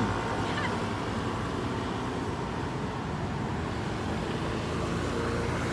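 Steady road traffic noise from cars and scooters at a city intersection, a low even hum with no distinct events.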